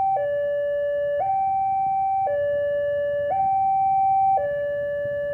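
Railway level-crossing warning alarm sounding a two-tone electronic hi-lo signal, switching between a lower and a higher tone about once a second, with the higher tone a little louder. It warns that a train is approaching the crossing.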